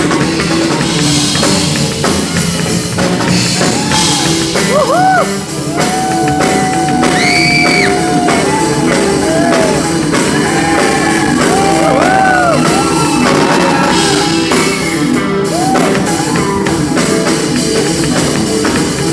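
Loud music with a singing voice: a sung melody with held and sliding notes over a repeating backing.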